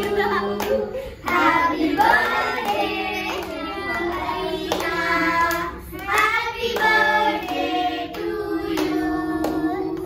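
A group of children and adults singing a birthday song together while clapping along.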